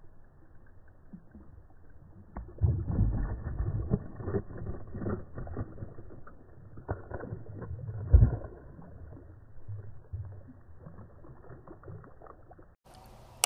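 A hooked bass thrashing and splashing at the surface beside a kayak, with rod-and-reel handling and knocks against the hull. The sharpest thump comes about eight seconds in.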